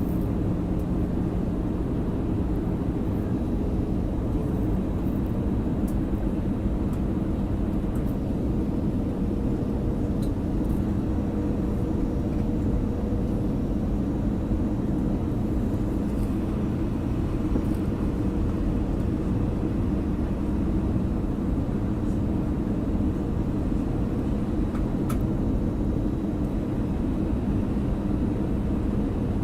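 Steady cabin noise of an Airbus A318 airliner in flight on approach: a low drone of the jet engines and airflow, with a few steady low hums running underneath.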